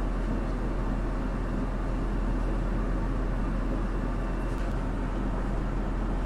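Steady diesel railcar noise heard inside the driver's cab: an even low engine hum with a constant running rumble.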